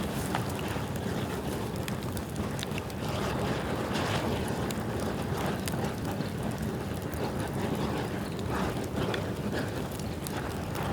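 Bamboo bonfire burning steadily: a constant rush of flames with frequent small crackles and pops.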